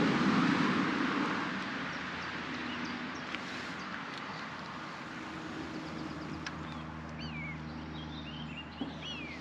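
Outdoor ambience: a rush of wind-like noise that dies away over the first couple of seconds, then a steady low drone of a distant engine, with a few short falling bird chirps near the end.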